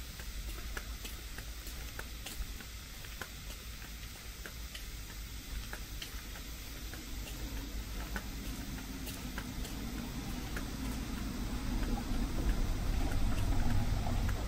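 Footsteps on a paved path, a sharp tick about twice a second. A low rushing noise swells up in the second half and is loudest near the end.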